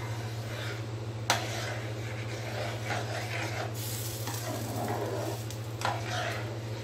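A metal spoon stirring a thin ragi flour and jaggery batter in a pan, scraping and swishing through it, with a sharp clink against the pan about a second in.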